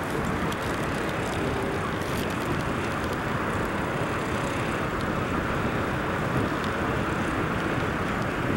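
Steady drone of a glass-roofed canal tour boat under way: its engine running with the rush of water along the hull, even and unbroken.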